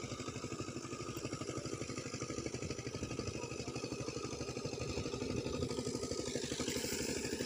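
A small engine running steadily with a fast, even throb, growing slightly louder in the second half.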